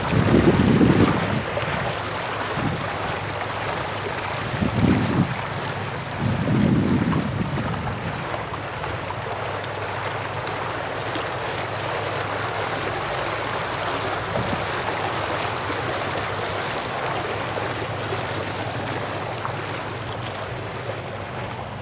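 Bubbler fountain jets in a tiled water-feature pool splashing and churning steadily. Wind buffets the microphone in low rumbles, loudest three times in the first seven seconds.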